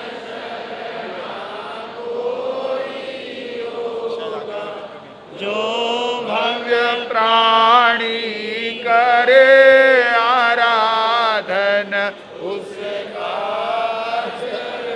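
Devotional chanting of a Jain hymn, sung in long drawn-out notes. About five seconds in the singing grows louder, with a wavering pitch, and it eases again after about twelve seconds.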